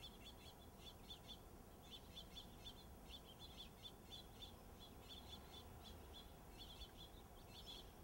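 Faint songbird chirping: short high notes in quick runs, several a second.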